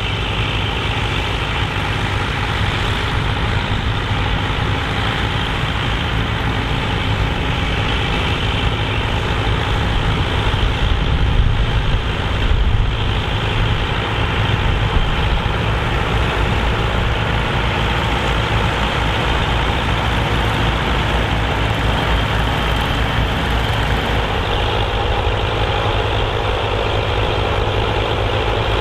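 Engines of a Massey Ferguson 65 tandem tractor running steadily under load, pulling a five-furrow plough, with a slight swell in level partway through.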